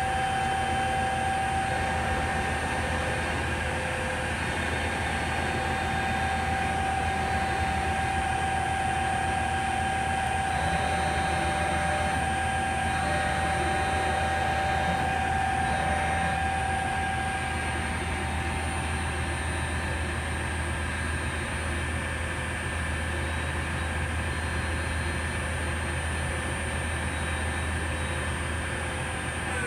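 Harrison Alpha 1550S CNC lathe's spindle running free at a steady speed, with a steady whine of several tones over a low hum from the headstock drive. Right at the end the pitch begins to fall as the spindle is stopped and spins down.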